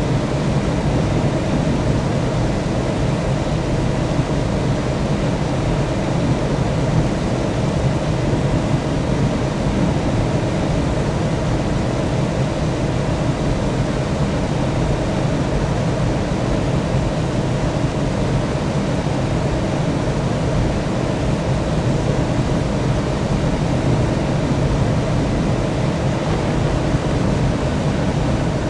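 Steady jet airliner drone, an even low rumble with a hiss on top that does not change in pitch or level.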